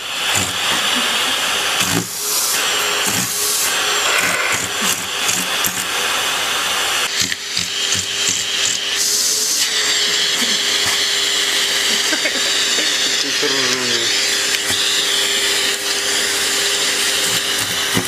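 Vacuum cleaner running continuously, its sound changing about seven seconds in and then settling into a steady hum with a high hiss.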